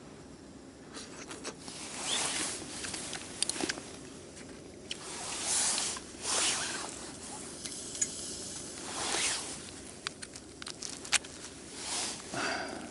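Hard oyster shells being scraped and handled, several rough scrapes about a second long with sharp clicks of shell on shell in between.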